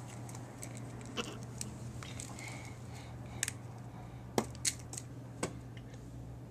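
Irregular small, sharp clicks and taps, about a dozen, the loudest a pair near the middle, over a steady low hum.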